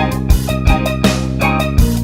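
Rock music with electric guitar, bass and a drum kit keeping a steady beat.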